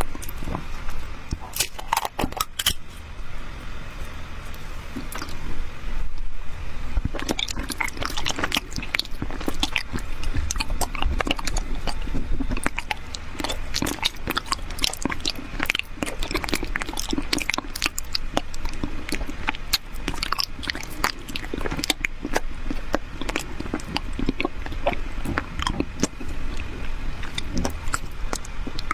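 Close-miked mouth sounds of a person biting and chewing colored honey jelly, with many quick, irregular sharp clicks.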